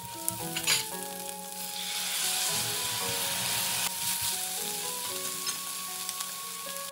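Onion masala sizzling in a hot frying pan as water is splashed in and a spatula stirs and scrapes it. A couple of sharp spatula knocks on the pan come in the first second, then the hiss swells loudly for about two seconds and settles to a lower sizzle.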